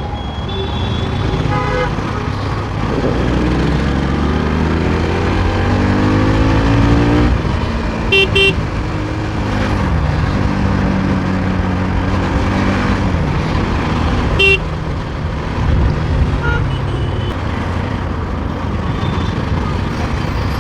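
Bajaj Pulsar NS200's single-cylinder engine pulling through traffic over wind noise, its pitch climbing for several seconds as it accelerates, then dropping and climbing again. Vehicle horns give a quick double beep about eight seconds in and a single beep around halfway through.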